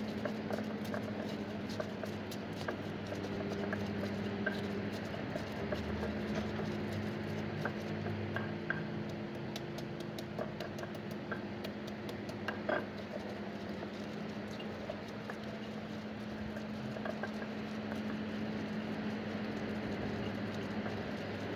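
Stone pestle (ulekan) grinding chilies, fried garlic and stock powder on a flat stone mortar (cobek): steady gritty scraping and crushing, with many small clicks of stone on stone and a single sharper knock about two-thirds through.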